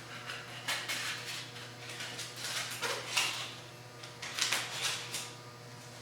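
Scattered clanks and rattles from handling a homemade belt grinder as its sanding belt is changed and fitted, in several short bursts.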